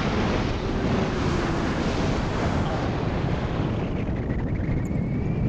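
Wind buffeting the microphone in paraglider flight: a loud, steady rushing noise, heaviest in the low end.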